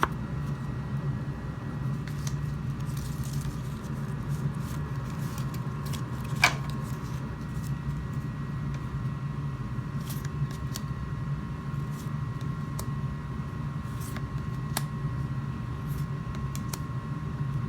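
Steady low room hum, like a fan or air conditioner, with a faint constant whine above it and a few scattered faint clicks. One sharper click comes about six and a half seconds in.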